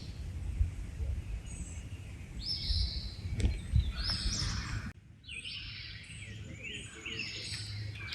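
A songbird singing short phrases over and over, more often in the second half, above a low rumble that cuts off suddenly about five seconds in.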